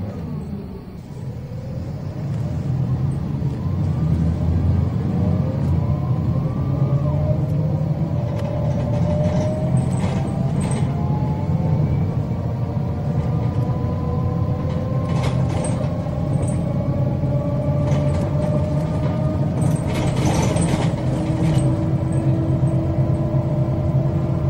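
MAN 18.280 city bus under way, its engine and drivetrain whine rising slowly in pitch as the bus gathers speed after a brief dip about a second in. Short clicks and rattles come through a few times.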